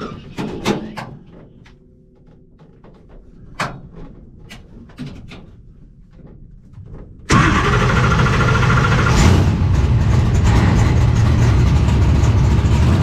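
A few faint clicks, then about seven seconds in the Murder Nova's Procharger-boosted Chevy engine fires up suddenly and runs loud and steady at an even pitch.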